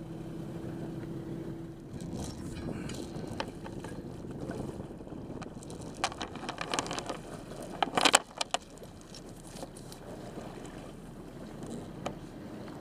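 Boat motor running, with wind on the water. From about six seconds in, a metal chain clinks and knocks in a short cluster as it is handled over the side; the loudest knock comes just after eight seconds.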